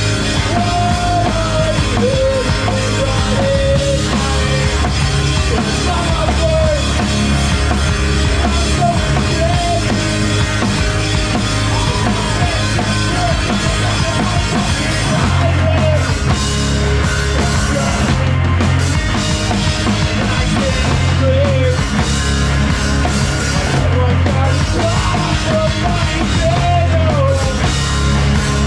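Live emo band playing loud and fast: drum kit with crashing cymbals, distorted electric guitars and bass, heard close to the drums.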